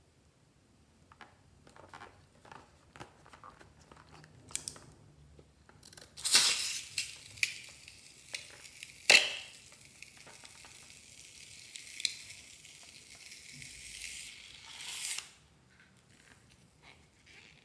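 Hands handling slime-making materials: scattered small clicks, then a long crinkling, tearing hiss with several sharp snaps through the middle, which stops a couple of seconds before the end.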